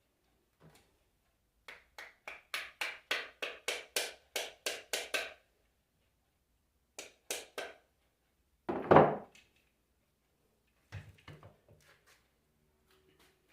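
A run of about a dozen quick, light taps, about three a second, then three more, followed by one heavier thump, the loudest sound, and a few softer knocks: hand tapping or hammering on workshop parts.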